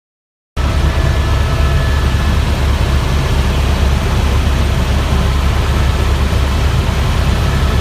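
Helicopter engine and rotor noise, loud and steady with a deep rumble and faint steady whining tones, cutting in suddenly about half a second in.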